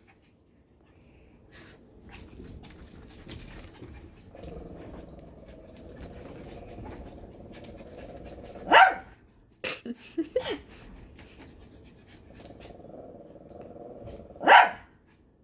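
A puppy barking sharply twice, about nine seconds in and again near the end, with a couple of short falling yips just after the first bark, over light clicks and rustling of play.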